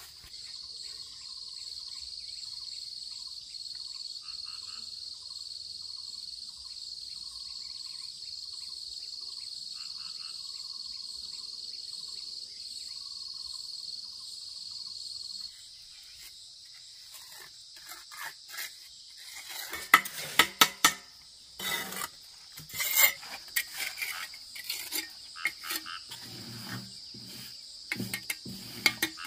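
A steady high insect drone runs through the first half and cuts off suddenly. Then a bricklayer's steel trowel clinks and scrapes on bricks and mortar as bricks are set and tapped into place.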